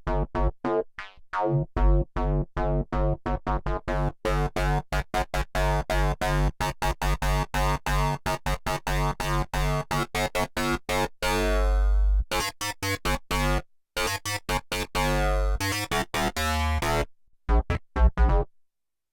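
Arturia MiniFreak synthesizer playing a factory preset: a fast run of short repeated notes over a low bass line, with a few longer held notes midway. The pattern stops near the end.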